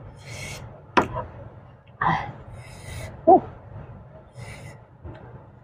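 Close-up eating sounds from a bowl of seblak soup: slurping and chewing. A sharp click about a second in is a wooden spoon against the bowl, and there is a short voiced sound a little after the middle.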